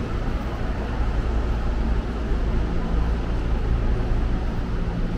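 Steady low rumble of vehicle running noise, with a low hum underneath and no distinct events.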